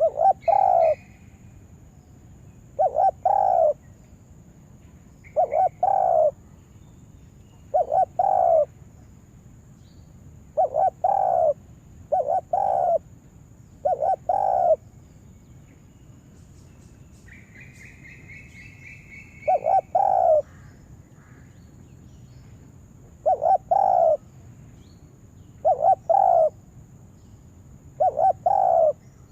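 Spotted dove cooing over and over: a short, loud, low coo phrase repeated about eleven times, one every two to three seconds, with a pause of several seconds in the middle. A brief, higher, rising chirp from another bird comes during that pause, and a faint steady high-pitched tone runs underneath.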